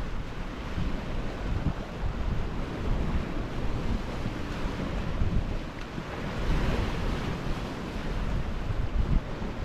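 Sea waves washing on the shore with wind buffeting the microphone in gusty low rumbles; a louder wash of surf swells up about two-thirds of the way through.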